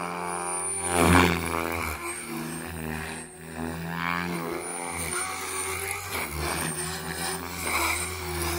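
OMPHOBBY M4 MAX electric RC helicopter in flight: a steady rotor hum under a motor whine whose pitch sweeps as it manoeuvres. There is a steep pitch drop about a second in, the loudest moment, and a rising sweep near four seconds.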